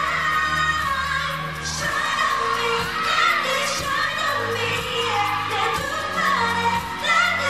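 K-pop girl group performing live: female voices singing into microphones over a pop backing track with a steady bass.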